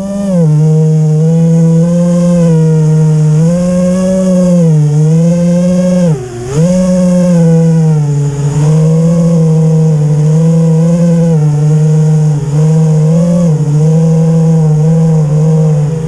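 FPV racing quadcopter's brushless motors (T-Motor F40 III, 2600 Kv) and propellers whining steadily in flight. The pitch dips and rises with each throttle change, most sharply about six seconds in.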